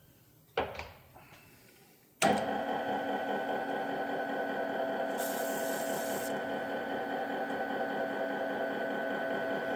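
An electric machine spindle motor switches on suddenly about two seconds in and runs with a steady hum, driving the tap into a bolt hole for a thread insert. There is a short knock shortly before it starts, and a brief hiss about five seconds in.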